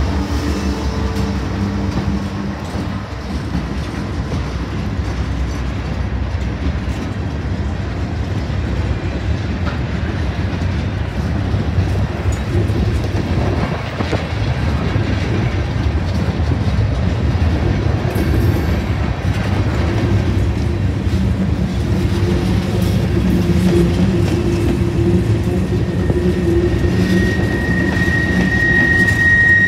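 Freight train rolling past at close range: a diesel locomotive's engine fades in the first seconds, then a string of hopper and gondola cars goes by with a steady rumble and clickety-clack of wheels over the rail joints. A steady high-pitched squeal sets in near the end.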